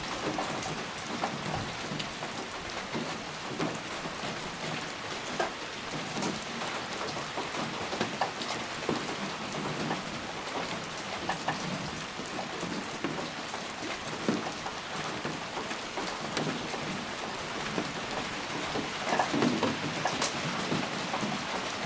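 Steady rain falling, a continuous hiss with many separate close drop hits scattered through it.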